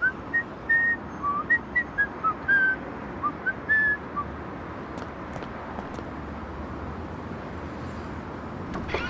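A person whistling a tune in short notes, stopping a little past four seconds in; after that only steady low background noise with a few faint ticks.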